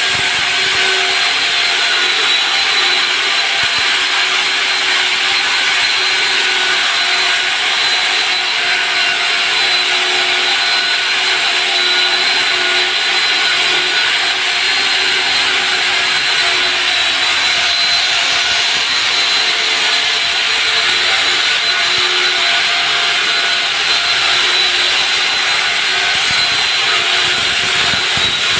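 Diamond core drill cutting through a concrete slab, running steadily: a loud, even hiss with a motor whine that holds one pitch.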